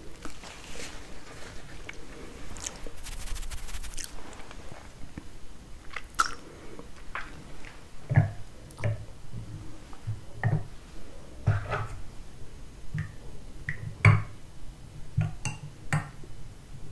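Close-miked ASMR chewing of a piece of Napoleon cake, layered pastry with custard: irregular wet mouth clicks and smacks. A paper napkin rustles during the first few seconds.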